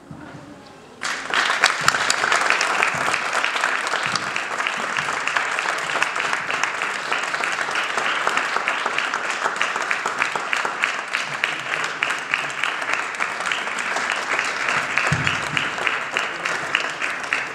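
Audience applauding: the clapping starts suddenly about a second in, at the end of a lecture, and goes on steadily.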